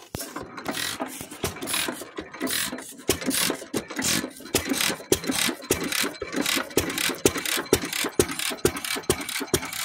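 1917 Fairbanks Morse 3 hp single-cylinder throttle-governed gas engine catching and running just after being started on the choke, a sharp exhaust bang about three to four times a second. The bangs begin suddenly at the start.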